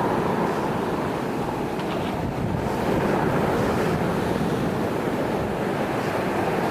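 Steady rushing noise of a stormy wind, buffeting the microphone.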